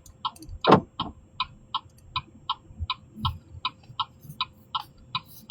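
Car turn-signal indicator ticking steadily, about three ticks a second, while signalling a left turn. A single louder thump comes just under a second in.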